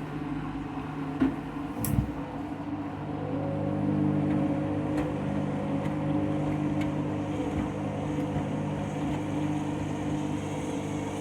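Candy front-loading washing machine's drum motor running with a steady hum while it tries to distribute an out-of-balance load of bedding before the spin. Two sharp knocks come a little after a second in, then the motor hum rises slightly about four seconds in and holds.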